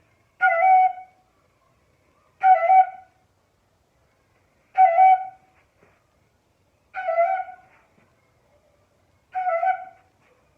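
Flute playing the 'turn signal' cue five times, a short quick figure of a few notes on about the same pitch, repeated roughly every two seconds. In the movement game it signals players to turn and go the opposite direction.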